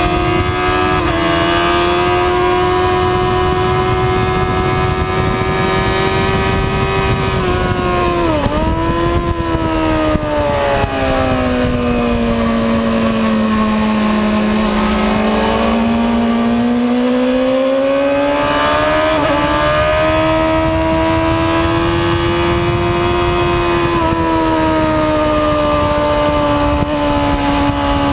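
Sport motorcycle's engine at full racing pace on a track lap, heard onboard over steady wind rush. The engine pitch holds high, dips sharply a few times about eight seconds in, sinks low around the middle as the bike slows, then climbs back up as it accelerates and holds high again.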